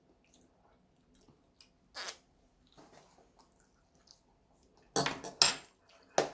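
Eating sounds at the table: a few short scrapes and clicks of cutlery on a dish of spaghetti, the loudest two close together about five seconds in.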